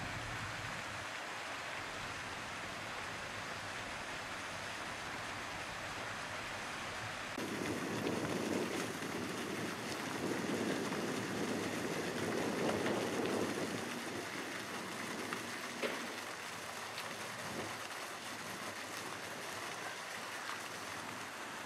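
Fountain water falling and splashing steadily into a stone basin, a continuous rush. About seven seconds in it changes abruptly to a louder, fuller splashing from a fountain jet falling back into its pool.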